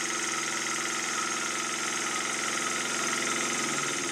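Small model steam engine from a Krick Victoria steam boat running fast on compressed air: a rapid, steady chuffing with hissing air. The engine has just been freed from seizure and is still stiff, running roughly and unable to run slowly.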